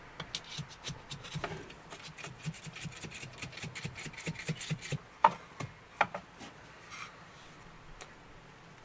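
Repeated short rubbing or scraping strokes, about three or four a second, like hand work on material. They are followed by a few sharp clicks, the loudest about five seconds in.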